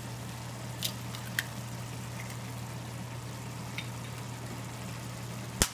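An egg being cracked on the rim of a frying pan: a few light clicks, then one sharp crack near the end. Underneath are the faint simmer of diced zucchini in the pan and a low steady hum.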